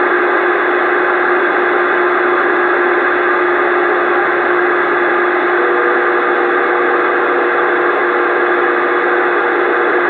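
CB radio receiver hissing with loud static from stations keying up on the channel, with a steady low heterodyne whistle and a second, higher whistle joining a little past halfway.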